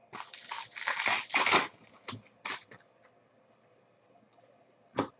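Foil trading-card pack wrapper crinkling and tearing for about a second and a half, followed by a few light clicks and taps of cards being handled.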